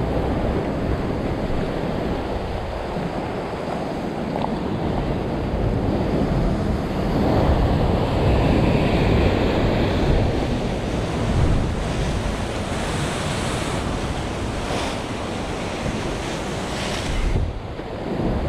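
Ocean swell surging and breaking into whitewater against a sandstone rock ledge, the wash swelling louder midway, with wind buffeting the microphone.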